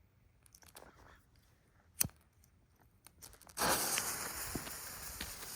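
A sharp click, then about three and a half seconds in a ground-spinner firework ignites with a sudden loud hiss that carries on, slowly fading, as it burns.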